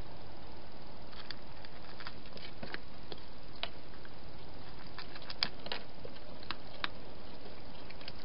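A cat eating from a plastic feeding dish: scattered, irregular small clicks and crunches of chewing, the loudest about halfway through, over a steady hiss.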